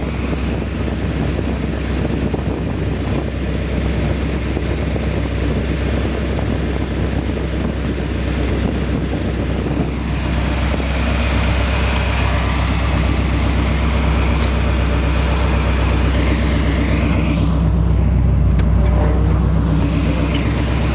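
The 1969 Corvette's rebuilt matching-numbers 350 small-block V8 running steadily through its stock exhaust manifolds (no headers), getting a little louder in the second half.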